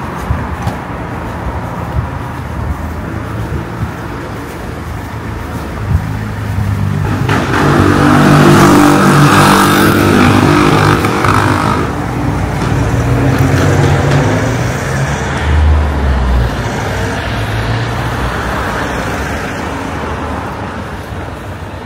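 A vehicle passes close by, its engine and road noise over the street's traffic. It grows louder from about six seconds in, is loudest about eight to eleven seconds in, then fades slowly.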